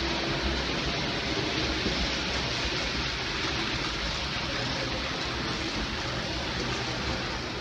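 Several N-scale model trains running on the layout's tracks at once: a steady, even rolling noise without distinct clicks or breaks.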